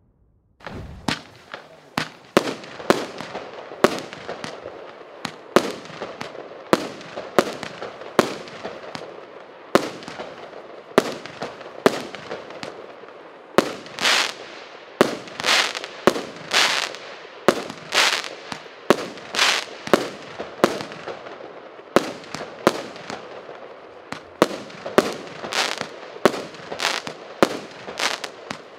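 A 25-shot, 1-inch consumer fireworks cake firing: a rapid string of sharp shot reports, roughly one to two a second, starting about half a second in, with continuous crackling noise between them.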